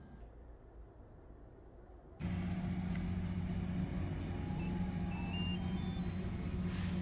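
Faint low background, then a steady low hum inside a camper van that starts abruptly about two seconds in. Over it, a few faint short electronic beeps step up in pitch around the middle as the van's control panel is switched on.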